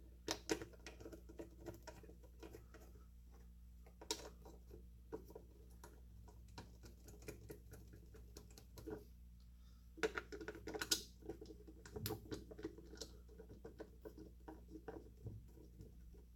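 Faint, irregular clicks, taps and scrapes of small metal and rubber parts being handled and fitted to a vacuum pump's base, over a low steady hum.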